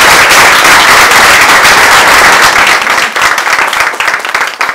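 Audience applauding loudly, the dense clapping thinning out to scattered single claps and dying away over the last couple of seconds.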